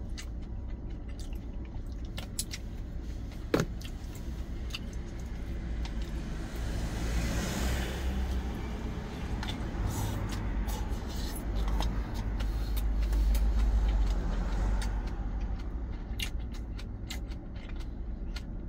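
Steady low vehicle rumble that swells for several seconds in the middle and then eases off, with scattered light clicks of chopsticks against a stainless-steel cup.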